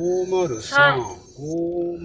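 A person's voice drawing out site numbers in a slow, sing-song way ("go~, zero~", five, zero), with long held notes.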